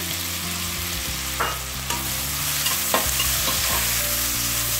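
Chopped onions, ginger and garlic sizzling in hot oil in an aluminium pressure cooker, with a metal spatula scraping and knocking against the pan a few times as they are stirred.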